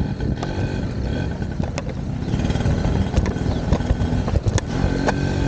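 Street noise in a busy market lane: the steady low rumble of a motor vehicle running, with scattered clicks and clatter.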